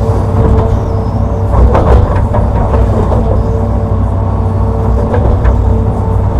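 Hitachi Zaxis 210-5G excavator's diesel engine running steadily with a hydraulic whine as it works. Short scrapes and knocks from the bucket in the earth come about two seconds in and again after about five seconds.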